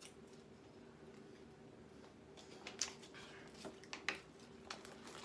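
Faint clicks and crackles of a plastic water bottle being handled, a few sharp ones bunched in the second half, over a faint steady hum.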